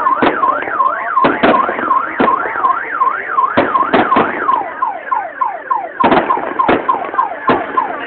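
Fireworks shells bursting in repeated sharp bangs. Under them an electronic alarm siren wails up and down about twice a second, then switches to a run of quick falling chirps about halfway through.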